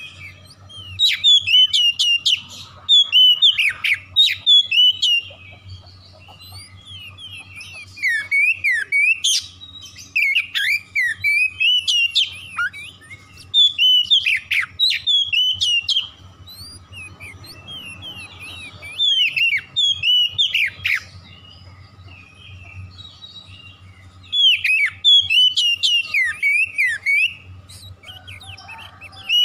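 Oriental magpie-robin singing in full voice: bursts of loud, rapid, varied whistled notes sweeping up and down, each a few seconds long, with short pauses between, about six bursts in all.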